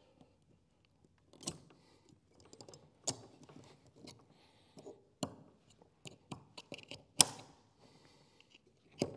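Steel snap ring being worked back onto a G80 locking differential's side-gear assembly with snap-ring pliers: a series of sharp metallic clicks and small scrapes. The loudest click comes about seven seconds in.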